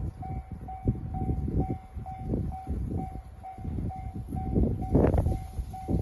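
Railway level-crossing warning bell ringing, an even repeated ding about twice a second, over irregular low rumbling gusts of wind on the microphone.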